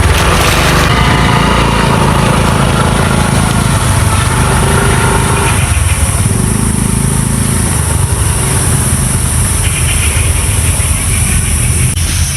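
A motor vehicle's engine running steadily while travelling, with road and wind noise.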